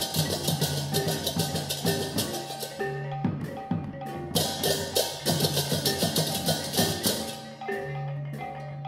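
Balinese gamelan music: bronze metallophones play struck melodic notes over long, low gong-like tones, with rapid clashing cymbals. The cymbals thin out about three seconds in, return, and thin out again near the end.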